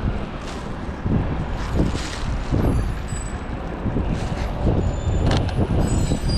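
Road traffic in heavy snow: a steady low rumble of vehicle engines, with irregular short thuds throughout and faint high thin tones in the second half.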